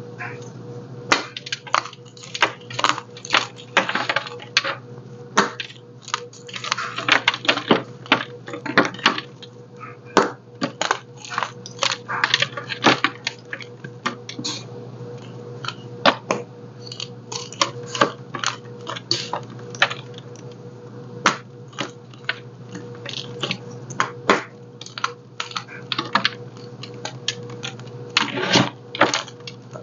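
A blue chalk block breaking and being crumbled by hand in loose chalk powder: a long run of sharp crunches, snaps and crackles, densest about seven to nine seconds in.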